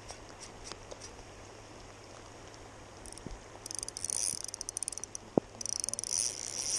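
KastKing Zephyr 1000 spinning reel buzzing with rapid high-pitched clicking while a hooked fish is played on light line. The clicking comes in two spells, starting about halfway in, with a single sharp click just before the second spell.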